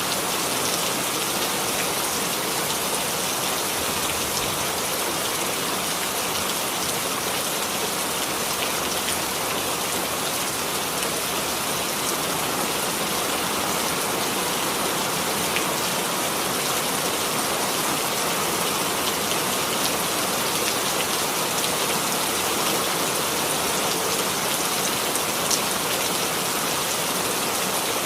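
Steady rain falling on a surface, an even hiss of many fine drops with faint tiny drop ticks.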